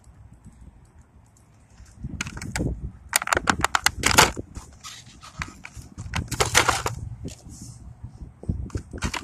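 Plastic toy packaging being handled, with irregular crinkling, crackling and scraping rustles starting about two seconds in.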